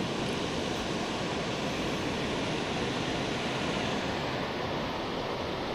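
Steady rush of water pouring over a dam spillway.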